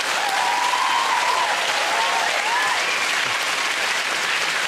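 Studio audience applauding, with a few voices cheering above the clapping in the first seconds.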